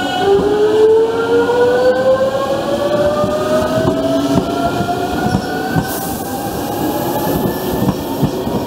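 JR Central 383 series electric train pulling away and accelerating: the traction motors' whine starts just after the beginning and climbs steadily in pitch, with higher tones rising alongside it. Underneath, the wheels knock over the rail joints.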